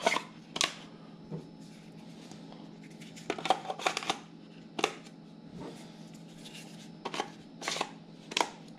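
Plastic clicks and scrapes from handling a DJI Mavic Mini battery charging hub as the batteries are pressed into their slots: about ten scattered sharp clicks, some in quick clusters.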